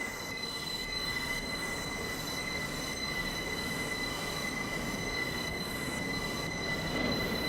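R179 subway car running through the tunnel, with a steady rumble and a constant high-pitched wheel squeal, getting a little louder near the end.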